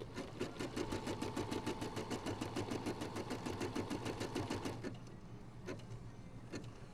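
Brother Innovis 990D embroidery machine stitching a design, its needle running at a steady rapid rate of about eight stitches a second with a steady hum, then stopping about five seconds in, followed by a couple of soft clicks.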